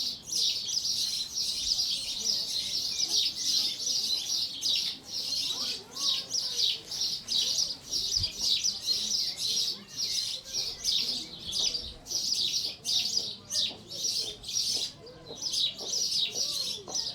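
Sparrows chirping continuously: many short, high chirps overlapping one another, as from a flock.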